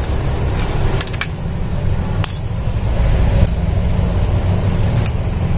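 A few sharp clicks and clinks as the gears and metal parts of a photocopier fixing-unit drive are handled and taken off their shafts. A steady low rumble runs underneath.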